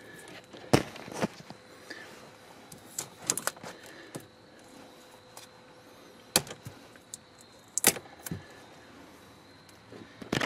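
Scattered sharp clicks, knocks and rattles of hands handling loose wiring and moving about inside a truck, with a faint steady tone underneath.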